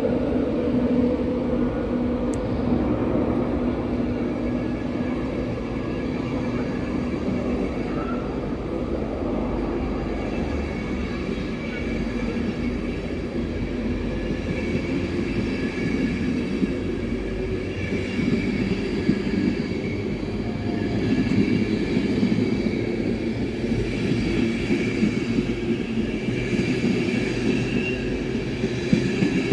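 Electric InterCity train of Mark 4 coaches drawn by a Class 91 locomotive, rolling past while pulling away. A steady rumble of wheels on rail carries a low hum that fades in the first several seconds, then high steady tones that come in about a third of the way through and grow toward the end.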